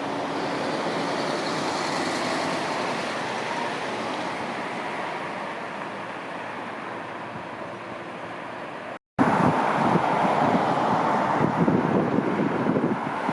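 Jet airliner engines passing on the landing approach: a broad roar with a faint high whine that swells over the first couple of seconds and then slowly fades. About nine seconds in it cuts off abruptly, and gusty wind buffets the microphone.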